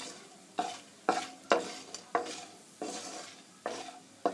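Wooden spatula stirring and knocking against a non-stick kadai, about two strokes a second, each stroke leaving a short ring from the pan. Crumbled badi (sun-dried lentil dumplings) are roasting in hot oil.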